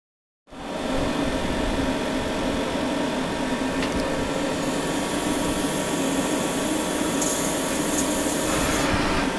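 A 1996 Leadwell LTC20AP CNC lathe running, a steady mechanical hum with hiss, coming in about half a second in. A higher hiss joins about halfway through and grows louder near the end.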